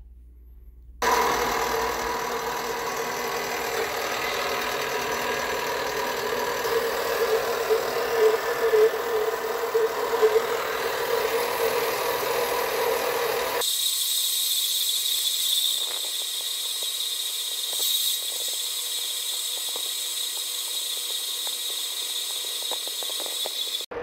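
Metal-cutting bandsaw running and sawing through a block of aluminium bar stock: a steady mechanical hum with a blade whine, starting suddenly about a second in. About halfway through the sound changes abruptly to a thinner, high-pitched hiss of the blade cutting.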